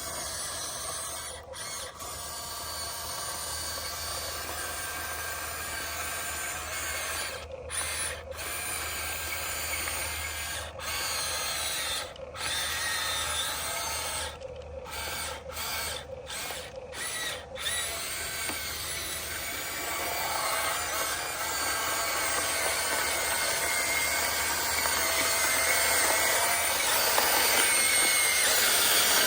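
Whine of the small electric motors of a radio-controlled construction model at work, cutting out for an instant several times in the middle and growing a little louder near the end.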